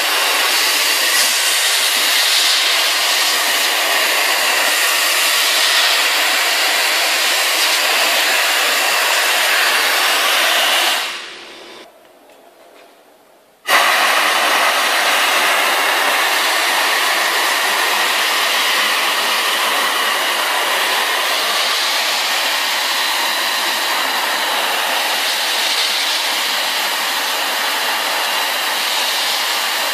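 Compressed-air-driven wet and dry vacuum cleaner running with a steady high hiss as it sucks soapy water off the floor. Partway through, the hiss dies away over about a second, and a couple of seconds later it comes back abruptly at full strength.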